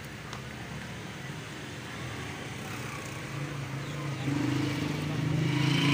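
A motor vehicle's engine running steadily, growing louder through the second half and loudest near the end as it approaches.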